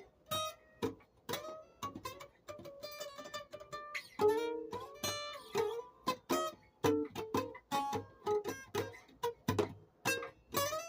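Acoustic guitar music, played as picked and plucked notes at a moderate pace with a fuller chord about four seconds in.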